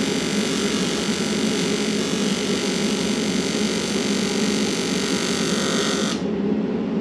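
Electric arc welding: a steady, loud hiss of the welding arc with a low hum underneath. The highest part of the hiss cuts off suddenly about six seconds in while the lower sound carries on.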